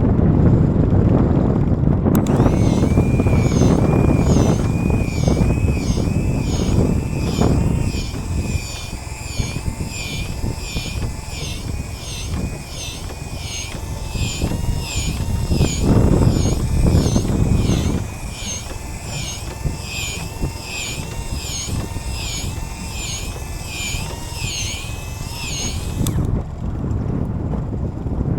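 Wind buffeting the microphone on a boat at sea, a loud low rumble. Over it, from about two seconds in until near the end, a high chirping sound repeats about one and a half times a second, then stops suddenly.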